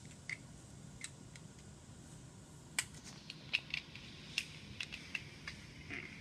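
Plastic Lego bricks clicking and tapping as they are handled and pressed together: scattered, irregular clicks that come thicker in the second half.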